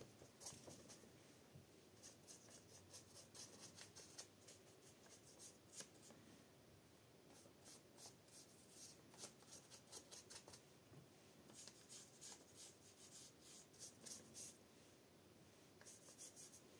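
Watercolour paintbrush dragged and dabbed across old book-page paper: faint, scratchy bristle strokes that come in several runs of quick strokes with short pauses between them.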